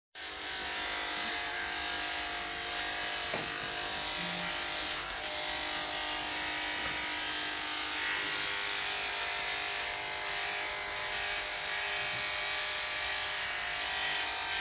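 Electric pet hair clippers running with a steady buzz.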